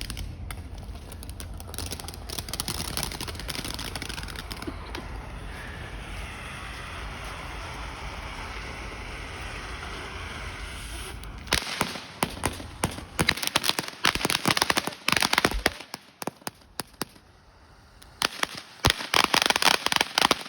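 Small consumer firework going off: a steady hiss for roughly the first half, then dense runs of rapid crackling pops, pausing briefly and then crackling again near the end.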